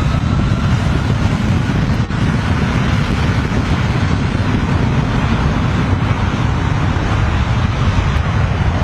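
Loud, steady low rumble with a rushing, wind-like hiss over it.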